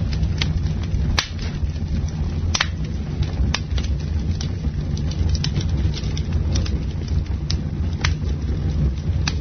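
Wood campfire burning and crackling: irregular sharp pops and snaps, a few louder ones among many small ticks, over a steady low rumble.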